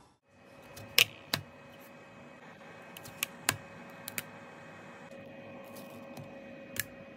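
Sharp light clicks and taps of thin plastic 3D prints being handled and lifted off a printer's steel build plate, several in quick pairs, over the steady hum of the running printer.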